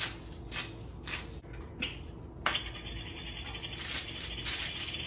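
Hand spice grinder grinding seasoning over a pan, a steady dry crunching rasp from about halfway in. It follows a few short scrapes and taps.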